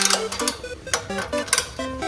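Background music: a tune of short, separate notes stepping up and down, with sharp clicks among them.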